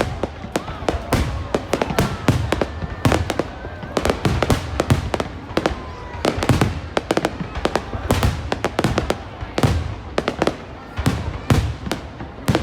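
Aerial fireworks display: a rapid, irregular barrage of shell bursts, bangs and crackles, several a second and without a pause.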